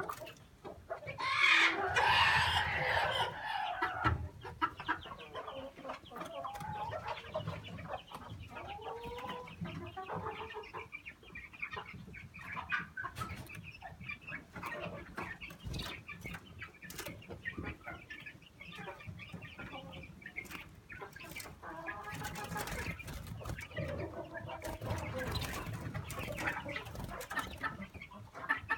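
Chickens clucking on and off, with a louder, noisier burst of commotion a couple of seconds in.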